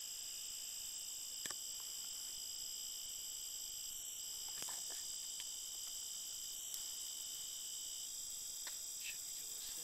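Night insect chorus of crickets, several steady high trills overlapping, one of them stopping near the end. A few faint clicks sound about a second and a half in and again around the middle.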